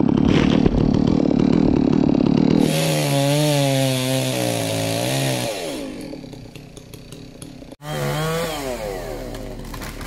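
Two-stroke chainsaw cutting through the trunk of a dead mountain ash, the engine note wavering in pitch under load. There is a sudden break a little before the end, then the saw is heard again with its pitch falling.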